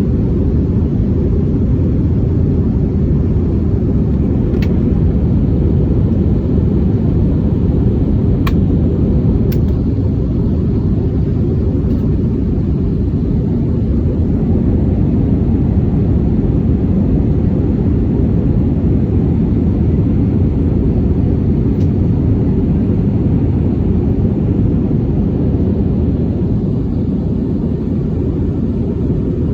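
Airbus A320 cabin noise in climb: a steady, loud, low rumble of jet engines and airflow that holds unchanged, with a few faint clicks.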